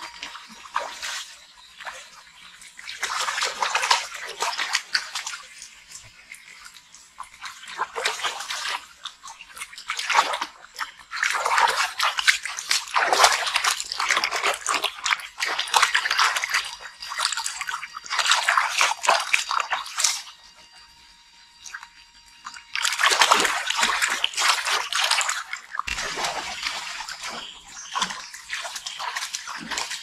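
Water splashing and sloshing in irregular bouts, with short quieter pauses between them.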